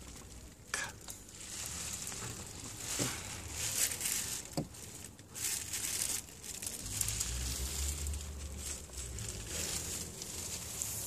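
Rustling and scattered light clicks of hands working at a car radiator's plastic drain bolt, with a low rumble in the second half.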